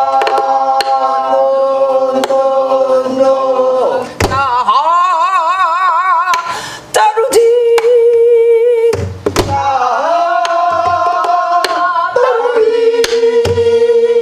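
Korean gueum singing: a woman sings a wordless melody in long held notes with wide, wavering vibrato. She accompanies herself on a buk barrel drum struck with a stick, with a few deep drum beats and lighter taps between the phrases.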